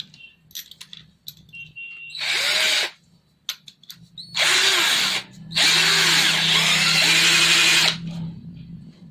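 Black+Decker LD12SP 12V cordless drill/driver motor run in three trigger pulls, the last about two seconds long. Its pitch rises and falls as the variable-speed trigger is worked, with small clicks between the runs.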